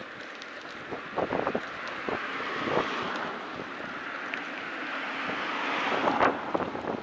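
Wind rushing over the microphone while cycling, swelling toward the end. Sharp knocks come in a cluster just over a second in and again about six seconds in.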